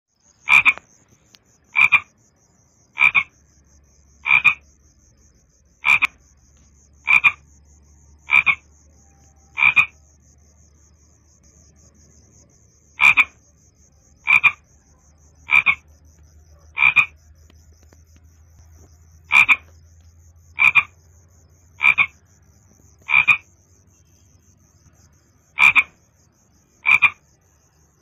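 A frog croaking: short calls about one and a quarter seconds apart, in sets of four with a pause of a few seconds between sets, over a faint steady high hum.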